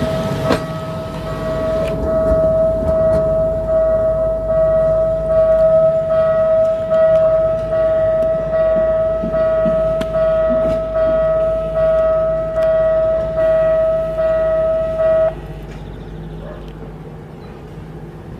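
Electronic warning tone sounding steadily with a pulsing beat about once a second, then cutting off suddenly about fifteen seconds in. A low steady hum runs underneath throughout.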